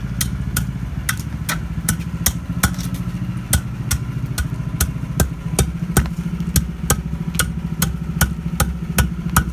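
Quick, repeated strikes of a steel hand tamper packing fresh hot asphalt, sharp taps about two to three a second, over the steady hum of an idling engine.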